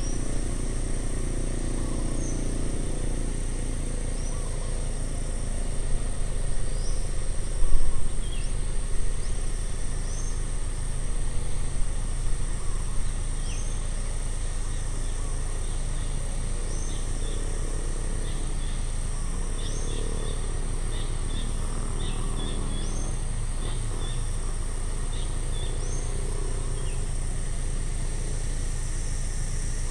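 Outdoor ambience: a steady high insect drone, short rising bird chirps repeating about every two seconds, and a constant low rumble that swells for several seconds about a fifth of the way in.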